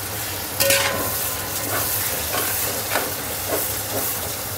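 Metal ladle stirring a thick, steaming vegetable masala for biryani in a hammered metal pot, over a steady sizzle, with scattered scrapes and knocks of the ladle against the pot.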